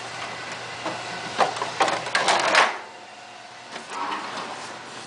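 Central air system running with a steady low hum, then shutting off about two and a half seconds in, just after a few clicks and a rustling clatter.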